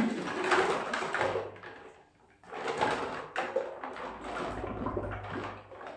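Plastic baby bottles and their parts being handled in a plastic basin of water: irregular knocking and rubbing of plastic with water sloshing, pausing briefly about two seconds in.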